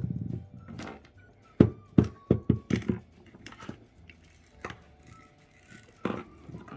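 Small rubber bouncy balls knocking on a hard surface: scattered sharp knocks, with a quick run about a second and a half in whose knocks come closer and closer together, like a ball bouncing to rest.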